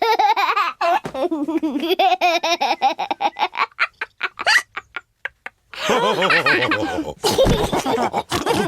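Cartoon pig family laughing together, several voices in quick laugh pulses, dying down to a short pause about two-thirds in and then breaking out loudly again.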